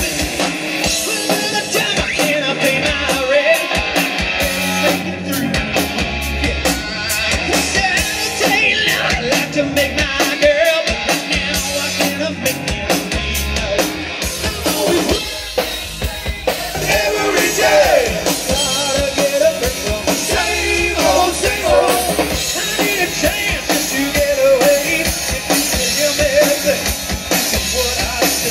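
Live 1980s-style rock band playing through stage speakers: electric guitars, bass and drum kit, with a lead singer singing over them.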